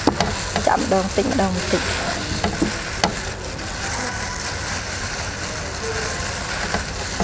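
Gloved hands squeezing and pulling apart a mound of fresh Khmer rice noodles (num banh chok) in a bowl to loosen the strands from each other: a steady soft, wet rustling.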